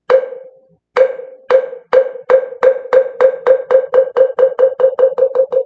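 Korean Buddhist moktak (wooden fish) struck with its mallet. Single hollow knocks about a second apart speed up steadily into a fast roll of about five strikes a second, the usual call that opens a Buddhist recitation.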